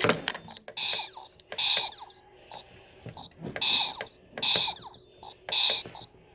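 Short electronic beeps, about five, spaced irregularly, from an electronic game or toy being played.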